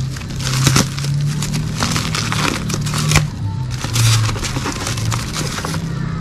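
Plastic wrapping crinkling and styrofoam rubbing as a styrofoam shipping box is unwrapped and pulled open by hand, in dense, irregular crackles.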